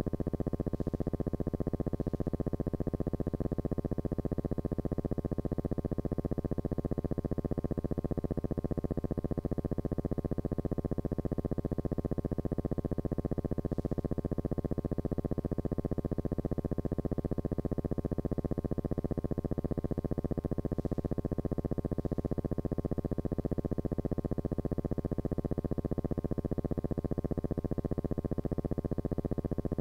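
A steady, unchanging low buzzing drone with an even hum, holding one pitch with no starts, stops or changes.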